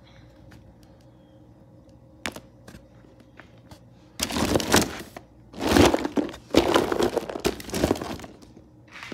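Hard plastic animal figures clattering and knocking against each other as hands rummage through a box of them, in three loud stretches from about four seconds in to about eight; a single click a little earlier.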